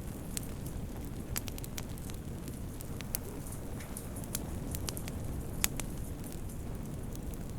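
Wood fire burning in a fireplace, crackling: a steady low rumble with scattered sharp pops, the loudest about five and a half seconds in.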